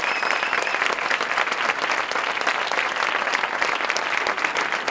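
Audience applauding steadily, many pairs of hands clapping at once.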